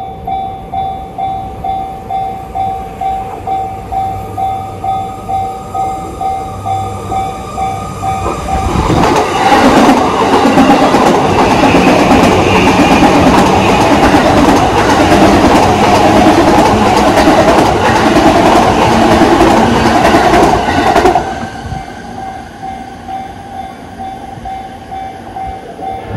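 Japanese level-crossing warning bell ringing about twice a second. About nine seconds in, a JR Yamanote Line train passes over the crossing, loud for about twelve seconds, after which the bell is heard ringing on.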